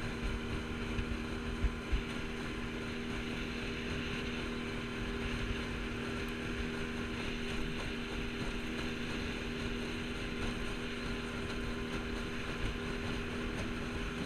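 Small outboard motor running at a steady speed, pushing an aluminium jon boat across open water, with water rushing along the hull. Wind buffets the microphone in the first couple of seconds.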